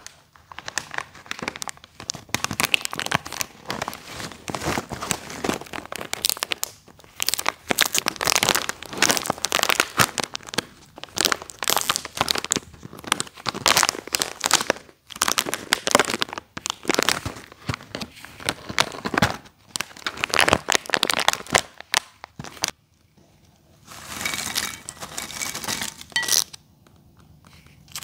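Plastic snack bags crinkling and rustling as they are handled and pulled at, with tearing of the packaging. The crinkling runs on for most of the time and breaks off a few seconds before the end.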